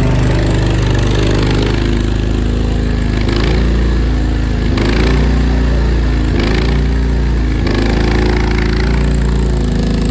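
Land Hero mini skid steer's engine running steadily while it works with the grapple bucket. The engine note dips briefly about four times as it takes load.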